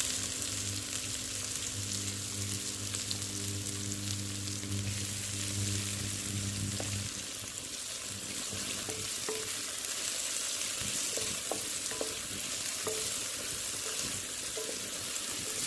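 Chopped onions and green chillies sizzling in hot oil with cumin in a kadai, stirred with a wooden spatula that knocks and scrapes against the pan now and then in the second half. A low hum runs under the sizzle for the first half and stops about seven seconds in.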